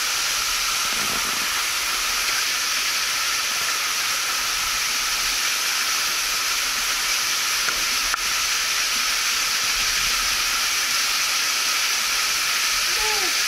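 Creek water rushing over rocks: a steady hiss.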